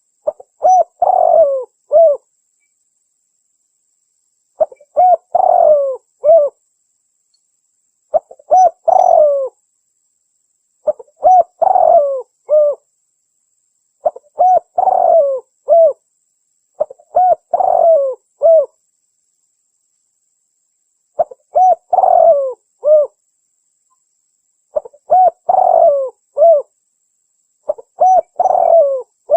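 Spotted dove (tekukur) call used as a lure: a repeated cooing phrase of several notes, sounding nine times, roughly every three to four seconds, with silence between phrases.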